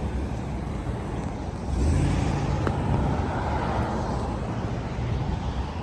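Street traffic rumbling, with a vehicle passing that grows louder about two seconds in.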